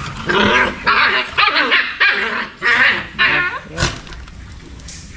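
Puppies barking in a string of short bursts, followed by a single sharp click.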